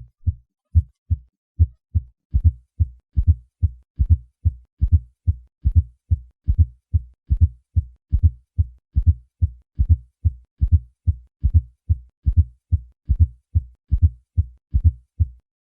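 Heartbeat heard through a stethoscope with a fourth heart sound (S4 gallop): a low-pitched extra thud just before each first heart sound, in a quick regular series of thuds, made louder by the patient doing sit-ups. The fourth heart sound is the sign of a ventricle stiffer than normal, with abnormal compliance.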